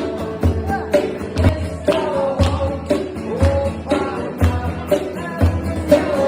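Background music: a song with a singing voice over a steady beat of about one low thump a second.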